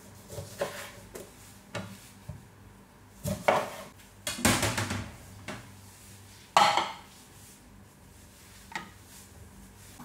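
Scattered knocks and clatter of a kitchen knife and dishes while salad vegetables are cut and handled. The loudest clatters come about three and a half, four and a half and six and a half seconds in.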